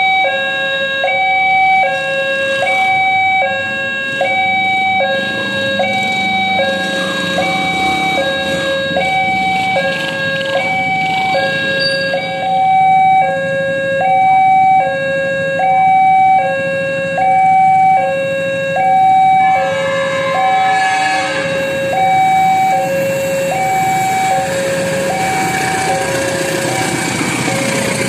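Railway level-crossing warning alarm sounding, an electronic two-tone signal that switches between a lower and a higher tone about once a second to warn that a train is coming. In the last several seconds the rising rumble of an approaching diesel-hauled passenger train builds under it.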